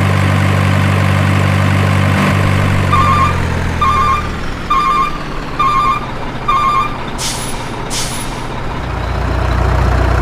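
Truck sound effects: a truck engine runs steadily, then five reversing beeps sound about a second apart, followed by two hisses of an air brake and the engine's low rumble rising again near the end.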